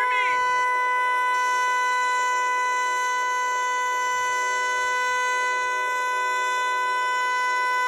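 Eclipse 8 outdoor warning siren sounding one steady, unwavering tone.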